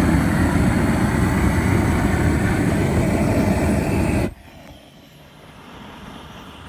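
Handheld propane weed torch burning at full flame, a loud steady rushing roar that cuts off suddenly about four seconds in, leaving only faint background sound.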